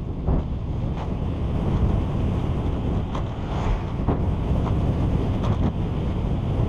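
Wind buffeting the microphone of a camera on a moving bicycle, a steady low rumble, with a few short knocks and rattles from the bike over the road surface.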